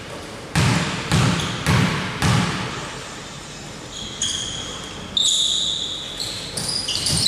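A basketball dribbled on a hard court, four bounces at about two a second. Then a few short high-pitched sneaker squeaks and softer knocks as players move.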